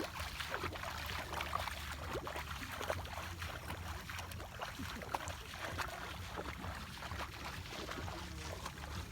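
Light, irregular splashing and sloshing of water and mud in a flooded rice paddy, over a steady low rumble.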